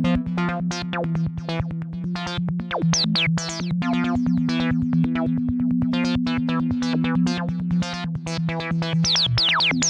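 Minimal techno played on a Maschine MK3 and MiniLab 3: a fast run of repeated plucked synth notes over a held low drone. Short falling zaps come in about three seconds in and again near the end.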